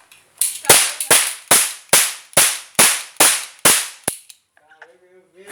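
Toy cap revolver fired rapidly about ten times, two to three sharp cracks a second, the last one weaker, then it stops.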